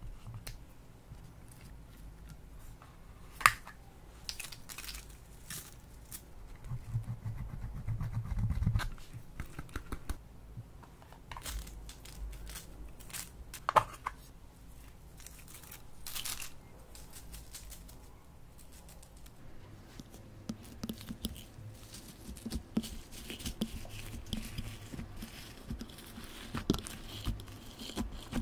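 Slime-making handling sounds: a spatula scraping pressed blush out of a plastic compact, with a couple of sharp clicks. From about twenty seconds in, dense small crackles as crunchy slime mixed with beads is squeezed and poked in a glass dish.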